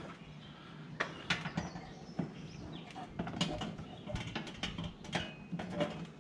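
Scattered light clicks and knocks of the plastic rear valance and fascia being handled and fitted onto the bumper, about a dozen spread irregularly across a few seconds.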